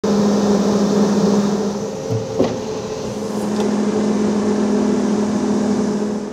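Volvo EC380E crawler excavator's diesel engine running at a steady pitch as the machine works, with a single sharp knock a little over two seconds in.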